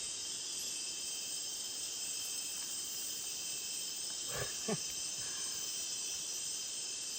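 Rainforest insect chorus, crickets and similar insects calling steadily in several high-pitched tones at once. A brief rising vocal sound comes about halfway through.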